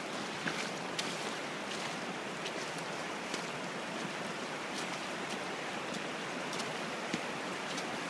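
Shallow river running over rocks, a steady rushing hiss, with a few short splashes from wading through the water.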